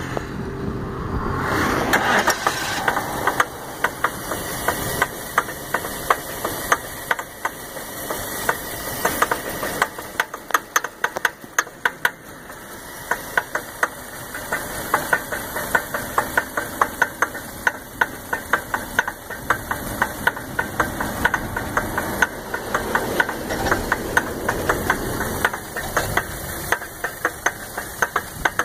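A 2001 Lincoln LS's 3.9-litre V8 turning over with a rapid, irregular knocking clatter. The clatter dips briefly about a third of the way in. The owner takes the noise for a broken timing chain, and the car won't start.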